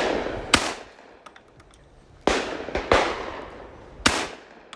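Shotgun shots fired at clay targets: about five sharp reports, mostly in pairs about half a second apart, each followed by a brief echo.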